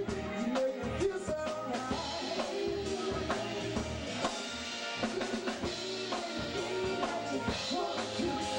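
Live band playing, the drum kit's kick, snare and rimshot hits most prominent over electric bass and guitar.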